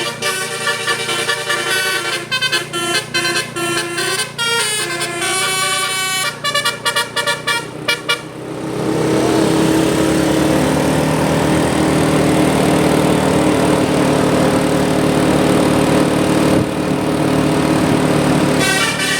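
Tour bus's musical 'telolet basuri' air horn playing a quick melody of stepped notes. About eight seconds in it gives way to a louder held sound of steady notes over a rushing noise, and the melody starts again near the end.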